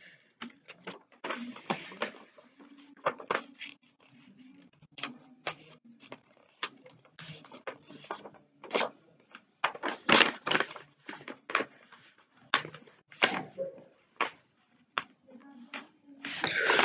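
A sheet of origami paper rustling and crinkling as it is folded and creased by hand, in many short, irregular crackles.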